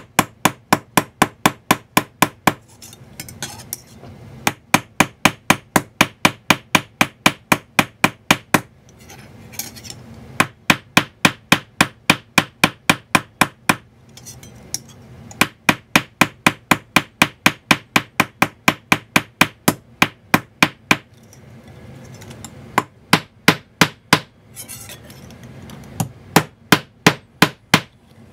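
Ball-peen hammer tapping a brass wire rivet on a steel bench block, about four quick metallic strikes a second in runs of several seconds with short pauses between. The taps are mushrooming the wire's end to fill a countersunk hole for a flush-set rivet.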